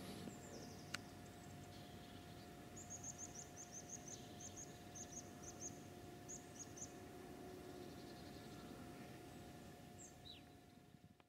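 A small bird calling faintly in the open: runs of quick, high chirps for a few seconds, over a quiet background. A single sharp click about a second in.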